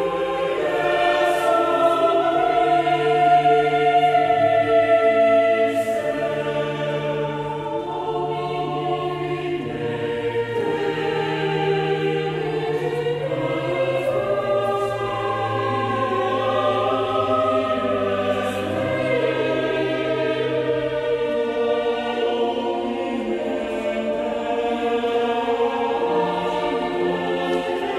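Mixed choir singing Baroque choral music, several voice parts holding and moving through long sustained notes together, swelling a little a few seconds in.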